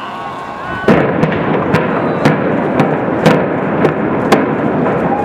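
A rapid series of sharp explosive bangs, about two a second, starting suddenly about a second in over a dense, continuous blast noise: demolition charges firing in sequence to implode a high-rise building.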